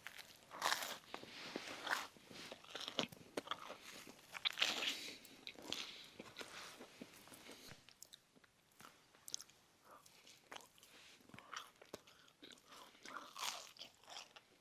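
Close-up biting and chewing of crisp food: irregular crunches, louder in the first five seconds and softer after that.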